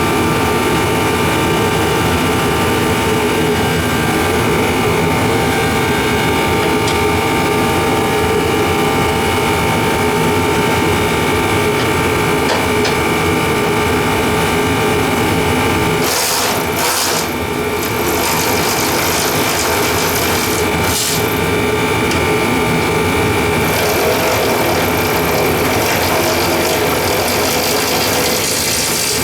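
A machine runs steadily with a constant hum and whir. A hiss joins about halfway through and again near the end.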